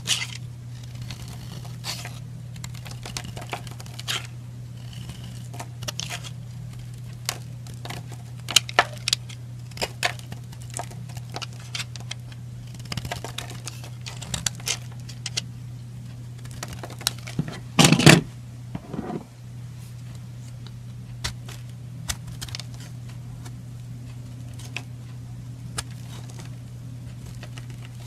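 Knife blade carving a bar of white soap: short, crisp scrapes and crunches as flakes and crumbs break off, with one louder crunch a little past halfway. A steady low hum runs underneath.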